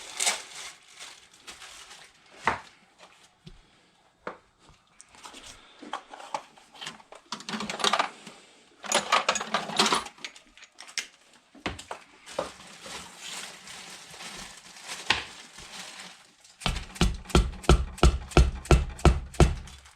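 Hands working on an engine with metal parts and tools: scattered clinks, clicks and rustling. Near the end comes a quick run of about a dozen heavy, evenly spaced knocks, about four a second, and these are the loudest sounds.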